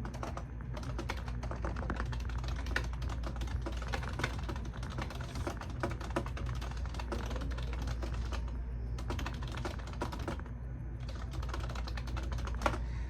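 Fast typing on a computer keyboard: a rapid, continuous run of key clicks that thins out briefly twice in the second half. A steady low hum runs underneath.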